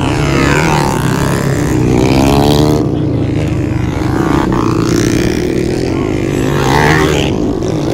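Underbone motorcycles racing on a dirt motocross track: a steady engine drone, with the revs climbing and dropping several times as the riders accelerate and shift.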